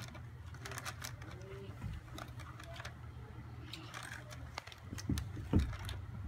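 Plastic bag crinkling in bursts as it is handled, with a couple of louder low thumps about five seconds in, over a steady low rumble.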